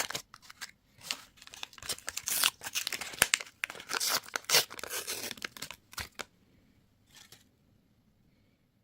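Candy wrapper being torn open and crinkled: a dense run of crackles and rustles that stops about six seconds in, followed by one faint rustle.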